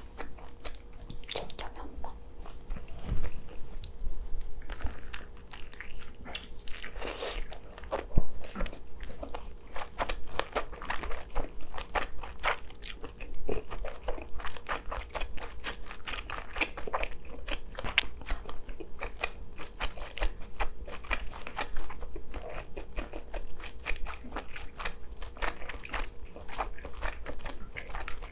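Close-miked biting and chewing of a grilled kielbasa sausage, with many crisp snapping clicks from the casing and wet mouth sounds.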